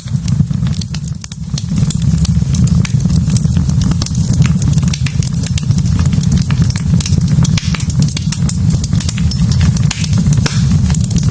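Wood fire burning in a fireplace: a steady low rumble of flames with frequent sharp crackles and pops of burning logs.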